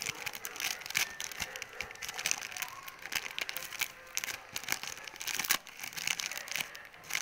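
Plastic courier mailer bag crinkling and crackling as hands pull it open, in many quick irregular crackles with one sharper snap about five and a half seconds in.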